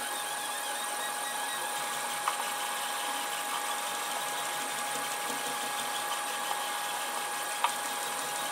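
Protomaker Sprint FDM 3D printer running a print: its stepper motors and fans make a steady whir with a constant whine. Two faint clicks come through, one about two seconds in and one near the end.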